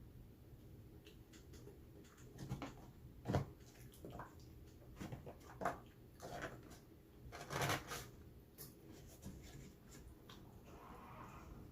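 Close-up eating sounds: chewing and mouth noises with scattered soft clicks and taps at irregular intervals, the sharpest about three seconds in.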